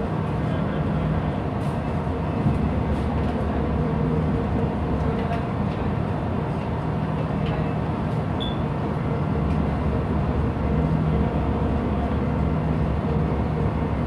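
Ship's engine-room machinery running with a steady low rumble and a faint hum that comes and goes, heard from the wheelhouse.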